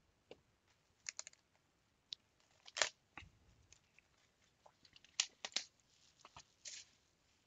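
Faint, scattered crinkles and clicks as gloved hands unwrap and open a sealed cardboard box of trading cards, with a soft thud about three seconds in and another cluster of crinkles a little past five seconds.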